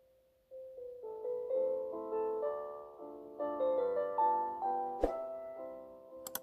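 Gentle background piano music, a melody over sustained chords. A sharp click comes about five seconds in and a quick double click near the end.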